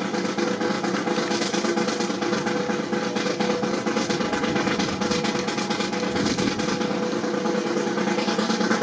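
A sustained snare drum roll, a fast even rattle that holds steady throughout.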